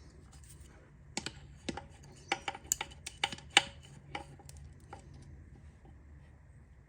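Crescent wrench clicking against a new transmission sensor as it is tightened into the case: a run of irregular, sharp metal clicks and taps, thickest in the middle, as the jaws are reset on the sensor between turns.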